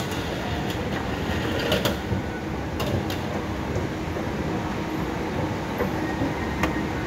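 Escalator running: a steady mechanical rumble, with a few sharp clicks.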